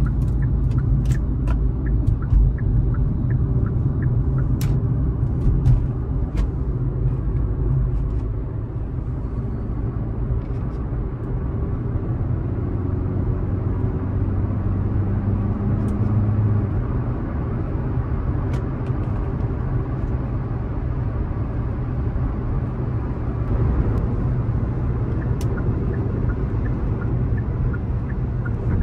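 Steady low road and engine rumble inside the cabin of a 2021 Hyundai Elantra with a 2.0-litre four-cylinder, driving at speed. There are a few faint scattered clicks in the first several seconds, and about halfway through the engine note rises for a couple of seconds before it drops away.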